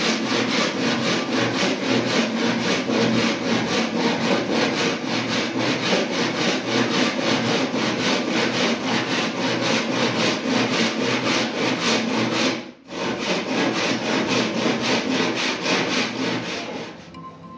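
Handsaw cutting through a laminated wooden board in steady back-and-forth strokes, about three a second, with a brief break about two-thirds of the way through.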